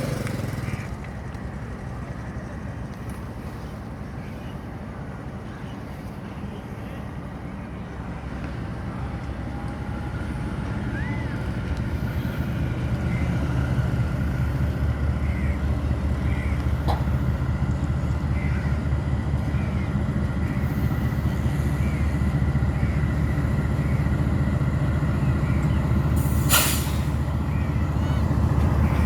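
Diesel locomotive engine running, its low rumble building up as it pulls a passenger train out of the station, with a short sharp burst of air near the end.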